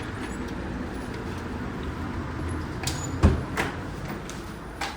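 A few muffled thumps and knocks over a steady low rumble, the loudest a heavy thud about three seconds in, with another near the end.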